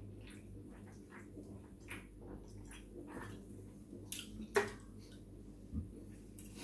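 Drinking from an aluminium drink can: soft swallowing and mouth sounds, then the can knocks twice as it is set down on the tabletop, the second knock about four and a half seconds in being the loudest.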